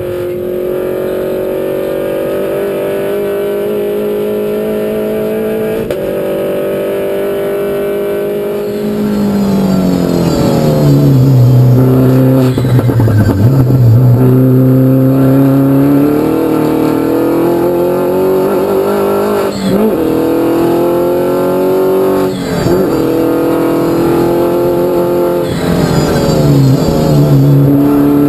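Mini Cooper race car's four-cylinder engine heard from inside the cabin. It holds a steady note for about nine seconds, then falls and climbs again through a string of gear changes under hard driving.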